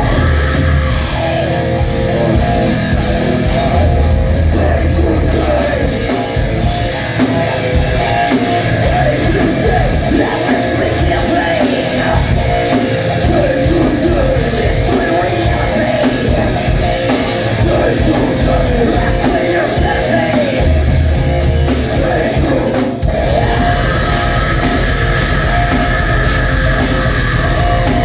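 Live rock band playing loud heavy rock with electric guitar and singing.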